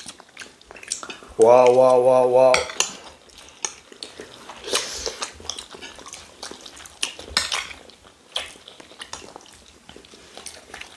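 Spoons clinking and scraping against plates of rice and stew, with many small clicks throughout. About a second and a half in, a single drawn-out vocal exclamation is the loudest sound.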